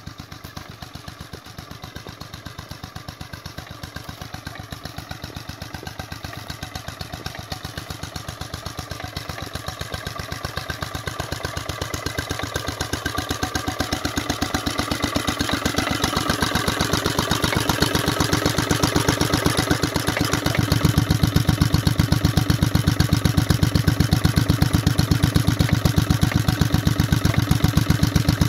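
H V McKay Sunshine 7 hp Type E two-stroke stationary engine running steadily, with an even, rapid beat of firing strokes. It grows louder over the first twenty seconds or so, then holds steady.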